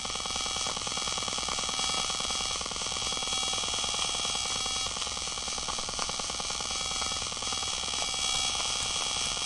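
Electrical noise from a Fluke multimeter's digital display, picked up by a Carlson Super Probe and played through an EICO 147A signal tracer's speaker: a steady electronic buzz of many stacked tones with a fast pulse.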